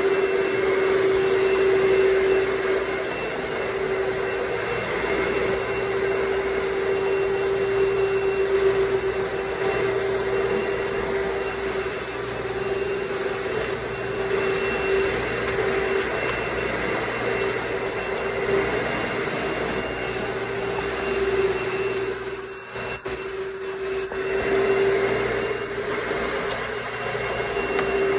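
Electric blower motor running steadily, a loud vacuum-like rush with a steady hum, briefly dropping in level about 22 seconds in before coming back.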